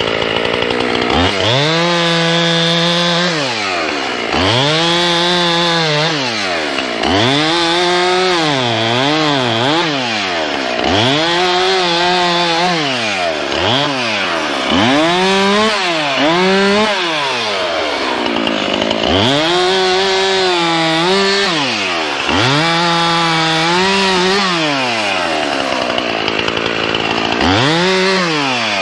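Two-stroke chainsaw revving up to full speed and dropping back to idle again and again, about ten times, as in a run of short cuts through a log.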